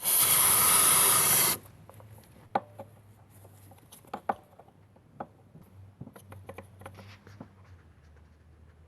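An aerosol can of throttle body cleaner spraying in one hissing burst of about a second and a half, followed by a few light clicks and knocks of parts being handled.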